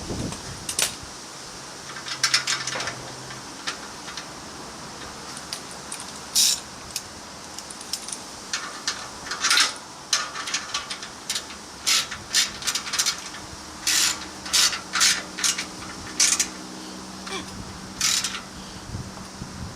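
Irregular metallic clicks and clinks of hand tools working on the motorcycle's exhaust clamp bolt, some of them in quick clusters.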